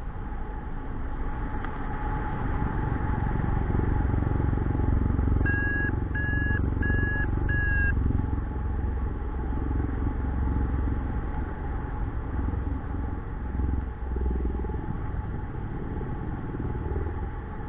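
Wind rushing over the microphone of a paraglider in flight, a steady low rumble. About five seconds in come four short, evenly spaced beeps of one pitch from a flight variometer: its climb tone, signalling rising air.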